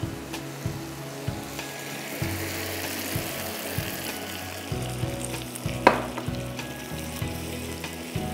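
Water poured into a hot frying pan hisses and sizzles on the browned butter, flour and dark soy sauce base of a brown sauce. A spatula stirs and knocks against the pan, with one sharper knock about six seconds in.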